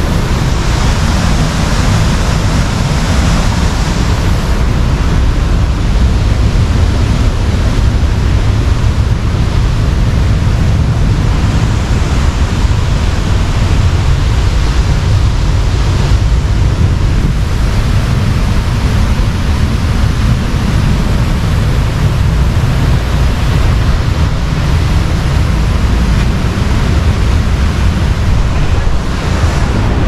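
Steady, loud roar of the fast-flowing river and the powerful Sumampan waterfall: rushing white water with no breaks.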